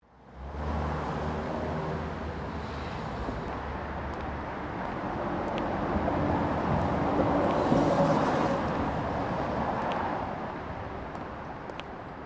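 Urban traffic ambience fading in: steady road noise with a low engine hum, swelling gently about two thirds of the way through, then easing off.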